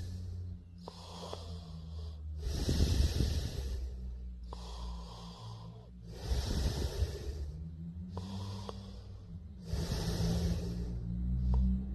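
A sleeping person snoring: about three slow breath cycles, each a rattling snore on the in-breath followed by a breathy, hissing out-breath.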